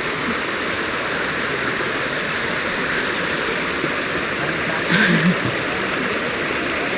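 River water flowing steadily, an even rush of water, with a brief voice heard about five seconds in.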